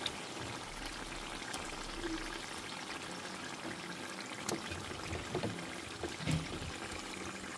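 Fish curry simmering in a pan, a steady wet hiss, with a few soft knocks near the end as tomato wedges are put into the pan.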